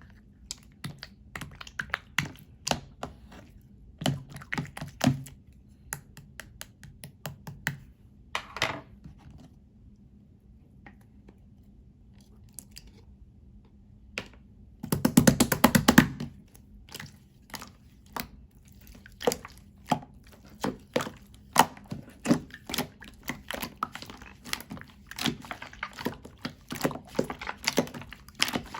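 Slime being squished and pressed by hand: irregular sticky clicks and pops, with a dense rapid crackle of pops lasting about a second midway.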